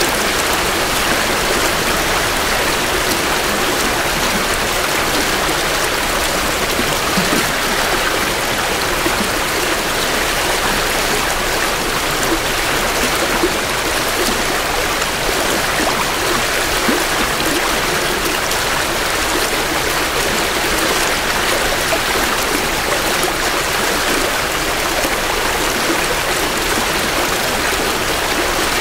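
A small creek swollen with spring runoff, flowing and splashing steadily over rocks, picked up close to the water.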